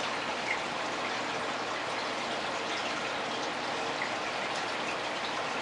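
Aquarium water running and bubbling steadily, with little pops of air bubbles scattered through it.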